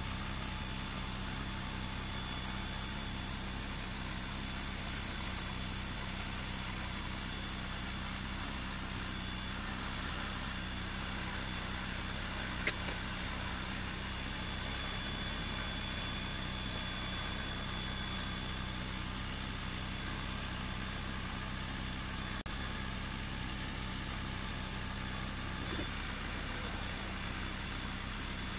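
Creality Falcon 2 22 W diode laser engraver running a cut in plywood: a steady machine hum from its cooling fan and built-in air-assist pump as the motor-driven head traces the outline, with one short click near the middle.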